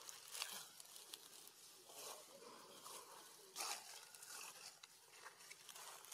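Near silence, with faint rustling and a few soft clicks.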